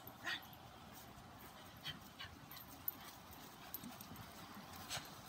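Faint footsteps of a person and a leashed dog walking on grass, with a few light, irregular clicks.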